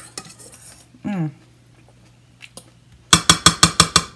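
Metal spoon clinking against a stainless steel mixing bowl: a few single clinks, then near the end a quick run of about eight loud ringing taps on the bowl in under a second, as the spoon is knocked clean on the rim.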